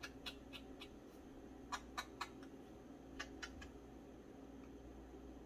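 Edges of a small paper tag being scraped with a distressing tool: short, quick scratching strokes in bursts of about three, repeated three times.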